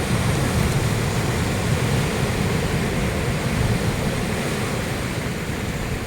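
Wind buffeting the microphone as a steady low rumble, with sea surf washing behind it.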